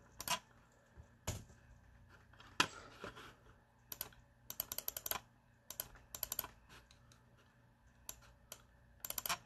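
Typing on a laptop keyboard: single key clicks at first, then quick irregular flurries of keystrokes.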